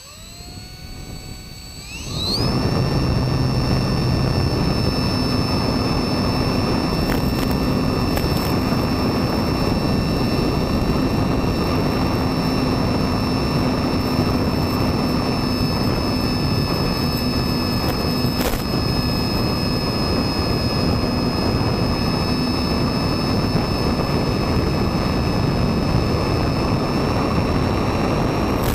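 A radio-controlled FPV plane's motor and propeller, heard from on board, spin up with a rising whine over the first couple of seconds for takeoff. After that they run steadily as a high whine over a constant rush of air.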